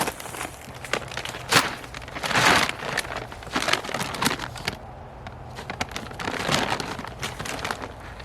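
Irregular crinkling and rustling from a partial bag of duck feed being handled, in uneven bursts, loudest near the start and about two seconds in.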